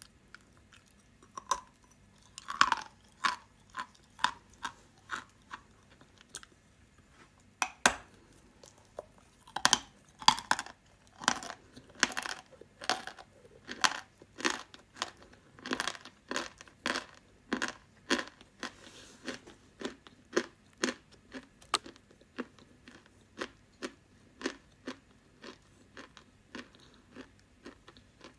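Dry clay chalk bitten and chewed close to the microphone: a long run of crisp, sharp crunches, about one or two a second, starting a second or so in.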